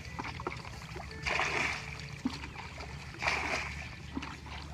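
Water splashing in regular strokes, one short splash about every two seconds, over a steady low hum.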